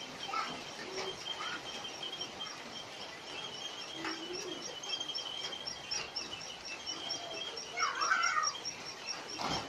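Outdoor ambience of rapid, evenly repeated high chirping, about five chirps a second, with a few faint clicks. Near the end comes a short, louder call that rises and falls.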